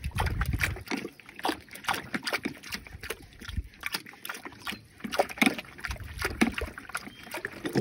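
Water sloshing and splashing in a water storage tank as the float ball of the tank's float valve is handled and unscrewed from its arm, with irregular small knocks and splashes.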